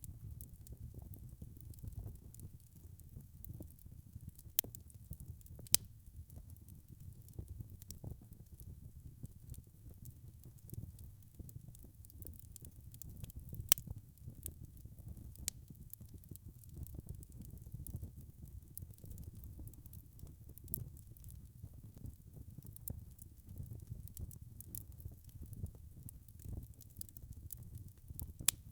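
Wood fire burning in a fireplace: a low steady rumble of flame with frequent sharp crackles and pops, a few louder snaps scattered among them.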